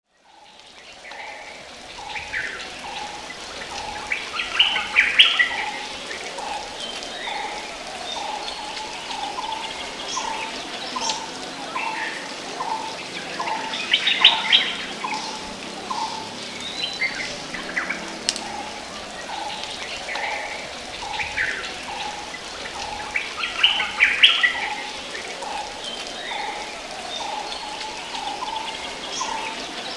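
Birds calling. One bird repeats a short note at about two a second throughout, and three louder bursts of higher song come about five, fourteen and twenty-four seconds in. The sound fades in over the first two seconds.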